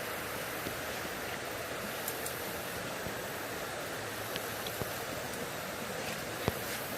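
Steady rush of floodwater running high after heavy rain, with a few faint clicks and one sharper click about six and a half seconds in.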